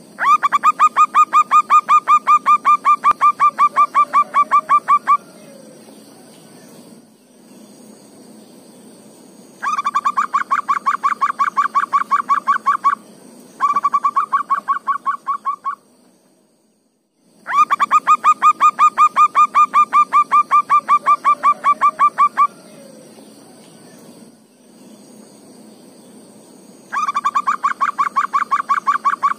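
Zebra dove (perkutut) calling in repeated trains of rapid pulsed notes, about a dozen a second, each train lasting two to five seconds with short pauses between. Under the calls runs a steady faint hum and a high steady hiss.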